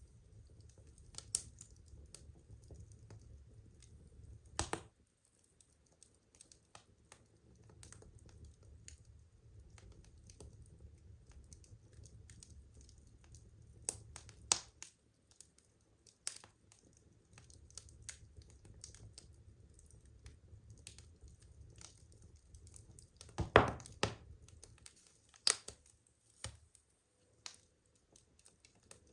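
Wood fire crackling: irregular sharp snaps and pops over a low rumble of burning flames. A cluster of louder pops comes about two-thirds of the way through.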